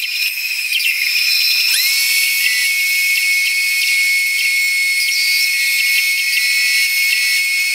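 Bandsaw with a narrow blade running and cutting through a board, giving a steady high whine over a hiss. Less than two seconds in, the whine slides up in pitch and then holds steady.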